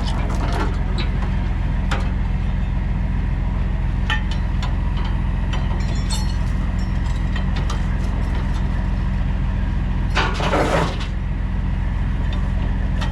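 Heavy diesel engine idling steadily, with scattered metallic clinks and a short burst of hiss about ten seconds in.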